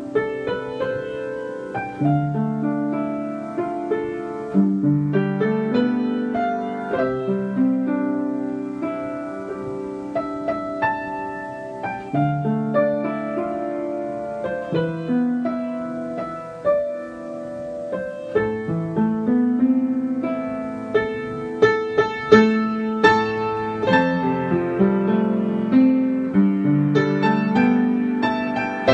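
Background piano music: a calm, steady run of single notes and chords.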